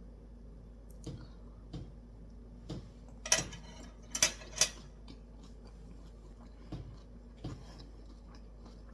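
Utensils clicking and knocking against dishes: a few light taps, then three sharper clicks in the middle, then two more light taps.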